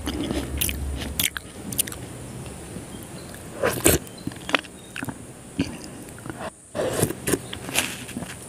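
Close-miked eating sounds of soft, syrupy Indian sweets: wet chewing and mouth smacks, with a metal spoon clicking and scraping against the plate and bowl. The sounds come as irregular short, sharp clicks, clustered about four seconds in and again near seven seconds.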